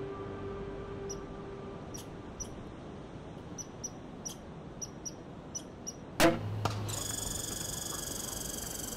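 Hunting crossbow fired at a black bear about six seconds in: one sharp snap with a short dull thud right after it, the bolt striking the bear. Faint small ticks come before the shot, and a steady high ringing sets in after it.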